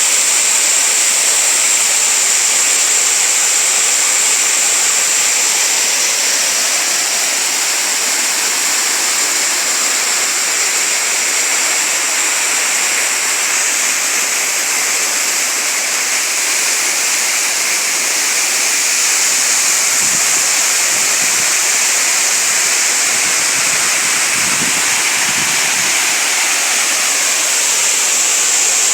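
Waterfall: water falling and rushing in a steady, loud hiss.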